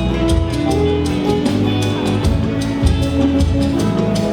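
Live church band music: a steady drum beat under a strong bass line and held, sustained notes.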